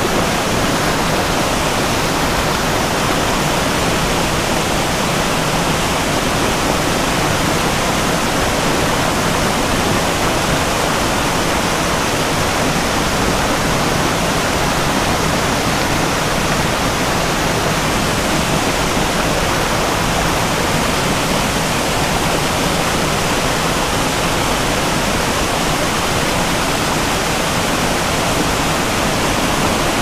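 Small mountain creek rushing over boulders into a pool, a loud, steady sound of fast whitewater that does not change.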